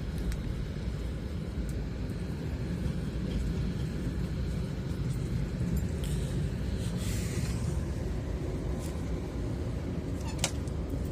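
Steady low rumble of a passenger train running, heard from inside the carriage, with a single sharp click near the end.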